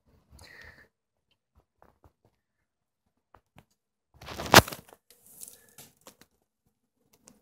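Water splashing in a shallow plastic tub holding a soragoi koi: a short splash under a second in, one loud splash a little past the middle, then softer sloshing as a hand goes into the water to hold the fish.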